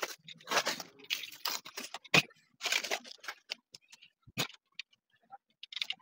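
Clear plastic wrapping being cut and pulled off a PC case: irregular crinkling and tearing of the plastic, with a couple of sharp clicks.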